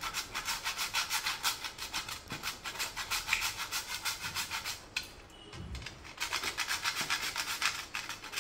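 Whole nutmeg being grated on a small flat metal hand grater: quick, even rasping strokes, about five a second, with a pause of about a second past the middle.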